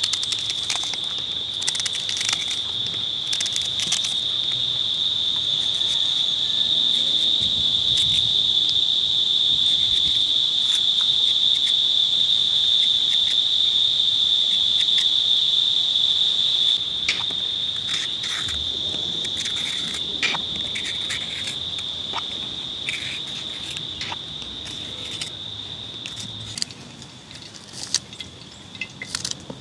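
An insect singing one steady high-pitched note, swelling louder toward the middle, then stepping down about two-thirds of the way through and fading further near the end. Scattered sharp clicks sound over it.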